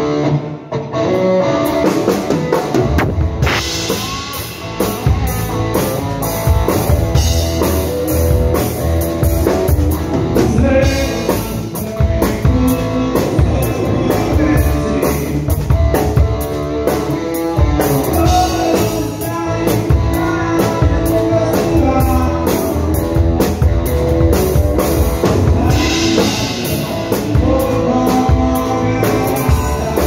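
Rock band playing live: a drum kit comes in about two seconds in and keeps a steady beat under electric guitar.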